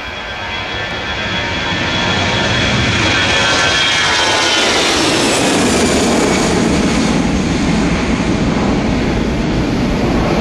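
Jet airliner passing close by. Its engine noise builds over the first two seconds, then a high engine whine falls in pitch about four to five seconds in as it goes past, leaving loud, deeper engine noise.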